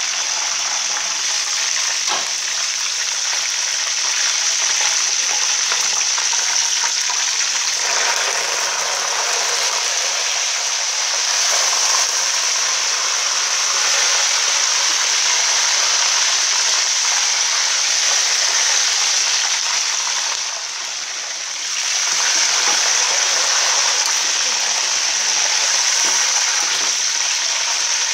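Hot oil sizzling steadily around a whole chicken frying in a large aluminium pot, dipping briefly about two-thirds of the way through.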